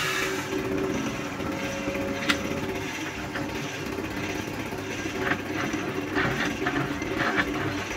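Wood lathe running with a steady hum while a hand-held boring tool cuts into the end grain of the spinning wooden workpiece, giving several short bursts of scraping in the second half.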